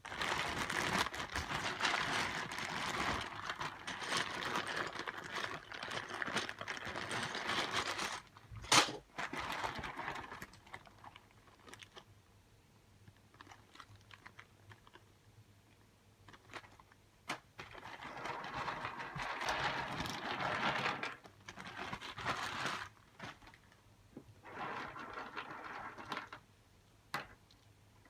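Mechanical keyboard keys clicking in fast, dense runs of keystrokes for about eight seconds. Then come scattered single clicks and shorter bursts of rapid clicking.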